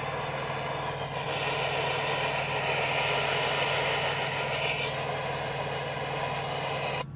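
Bumpboxx Retro Pager speaker playing untuned FM radio static, a steady loud hiss that cuts off suddenly near the end. It switched to radio because it will not read the 64 GB memory card.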